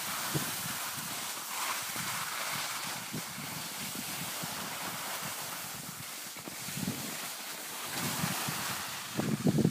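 Wind buffeting the microphone during a downhill ski run, over a steady hiss of skis sliding on snow. The gusty rumble grows stronger near the end.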